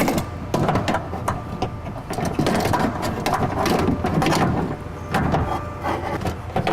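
A new AC Delco window regulator's metal rails and cables clattering and scraping against the sheet metal of a GMC Yukon front door as it is fed into the door, with many irregular clicks and knocks.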